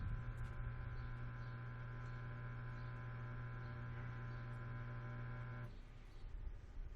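Samsung WD136 front-load washer-dryer giving a steady electric hum that cuts off abruptly about six seconds in.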